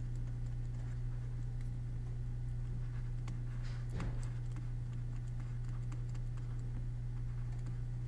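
A stylus tapping and scratching on a tablet screen as words are handwritten: small irregular clicks, with a longer scratchy stroke about four seconds in, over a steady low hum.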